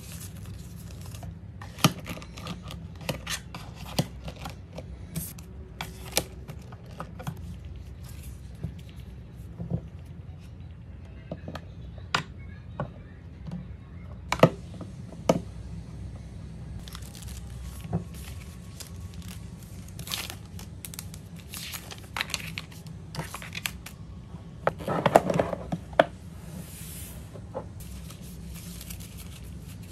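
Paper photocard packets and cards rustling and crinkling in the hands, with scattered sharp taps and clicks as they are set into a clear acrylic organizer. A denser stretch of rustling comes near the end, over a low steady hum.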